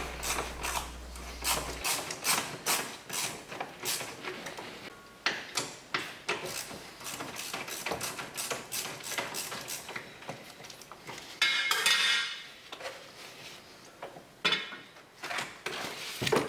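Socket ratchet clicking in quick runs as the 13mm battery hold-down bolt is unscrewed. About twelve seconds in there is a short scrape, followed by a few knocks near the end as the hold-down and the battery come out.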